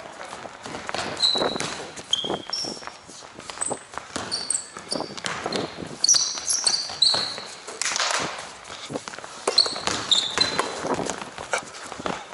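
Basketball game on a hard court: many short, high sneaker squeaks as players cut and stop, mixed with the knocks of the ball bouncing and running footfalls.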